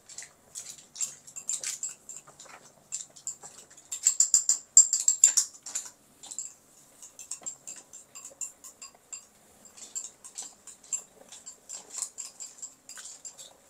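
Water spinach and razor clams stir-frying in a hot pan: irregular crackling and popping of the oil, busiest and loudest about four to six seconds in.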